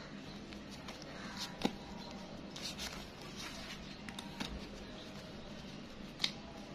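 Banded bundles of crisp new 20-taka banknotes being handled: quiet paper rustling with a few sharp snaps of the notes, the clearest about a second and a half in and again near the end.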